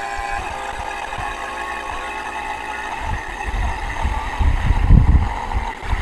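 Fieldpiece vacuum pump running steadily with its gas ballast still open, pulling a rough vacuum on a refrigerant recovery tank that is drawing down rapidly. Low thuds and rumble come in over the hum in the second half, loudest about five seconds in.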